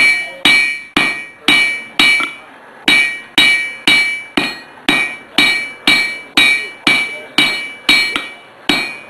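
Blacksmith's hand hammer striking a red-hot iron bar on an anvil, about two blows a second, each blow followed by a bright metallic ring from the anvil, with a brief pause after about two seconds. This is the start of forging a pair of tongs.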